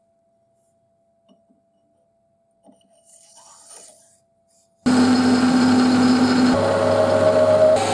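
A few faint light taps, then about five seconds in a workshop machine tool starts abruptly at full level and runs steadily with a whine of several steady tones.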